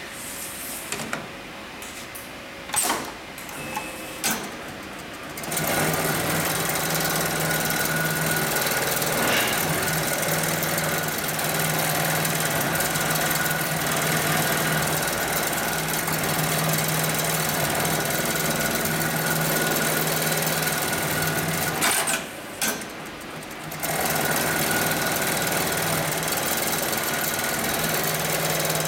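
Hightex MLK300-6040 automatic programmable pattern sewing machine stitching a shoe upper clamped in its template. A few clicks and knocks come first as the template is loaded. From about five seconds in the machine sews steadily, pauses briefly with a couple of sharp clicks about three-quarters through, then resumes sewing.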